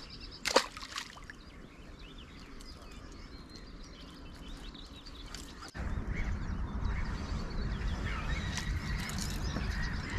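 Quiet lakeside ambience with faint bird calls and one brief sharp sound about half a second in. A little under six seconds in, the sound changes abruptly to a louder, uneven low rumble of wind on the microphone, with birds still calling over it.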